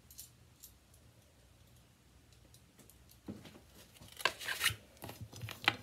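Crinkling, tearing sounds in several short, sharp bursts, starting about three seconds in after a quiet start.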